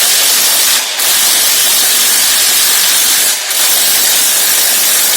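Loud steady hiss of escaping gas, broken briefly twice.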